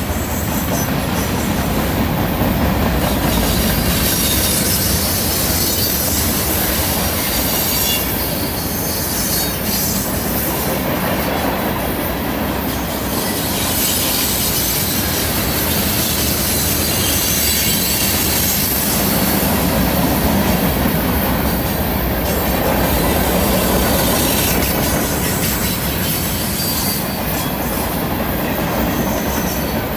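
Freight train cars, tank cars and covered hoppers, rolling past on a curve: a steady, loud rumble and clatter of steel wheels on rail, with high-pitched wheel flange squeal that comes and goes.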